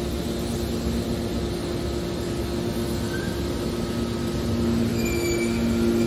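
Hydraulic power unit of a scrap metal baler running, a steady mechanical hum with two low steady tones that grow stronger about five seconds in.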